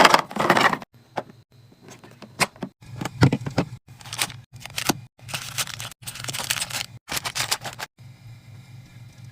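Groceries being handled and packed into a fridge: bursts of plastic packaging rustling, and clicks and knocks of containers being set down and lids snapping. The bursts come in short snippets that cut off abruptly, over a low hum, and grow quieter near the end.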